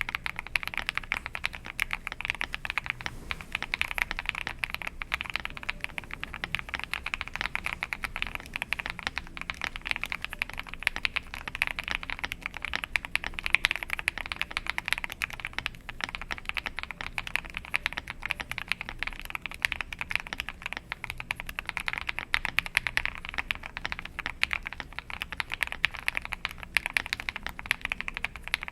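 Fast, continuous typing on an Akko 5075B Plus mechanical keyboard fitted with Krytox 205g0-lubed switches: a dense stream of keystroke clacks with no break.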